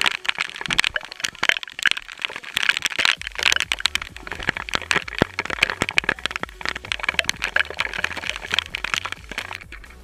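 Splashing and falling waterfall water close to the camera, a dense crackle of drops and spray hitting it. About three seconds in, a low bass line of background music comes in underneath.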